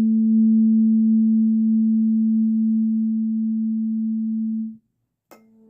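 Tuning fork tuned to 221.23 Hz ringing with a steady low hum and a fainter higher overtone. The tone stops abruptly about five seconds in. After a moment of silence there is a sharp click, and the tone starts again faintly.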